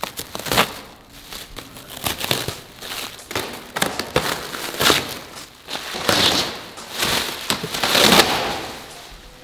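Plastic stretch wrap being pulled and torn off a shipping pallet by hand, crackling and crinkling in a run of bursts, loudest about six seconds in and again near the end.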